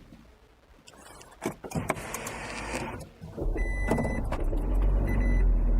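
Toyota Prius being started after sitting several days in sub-zero cold: a few clicks and a short whir, then about three and a half seconds in the engine catches and keeps running steadily. Short electronic beeps sound over it as it starts.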